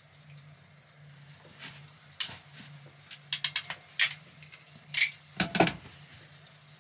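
Sharp clicks and light knocks from hands working a small electrical switch and its spade-connector wires into a wiring panel. They come as a scatter from about two seconds in, with the heaviest knocks near the end, over a faint steady low hum.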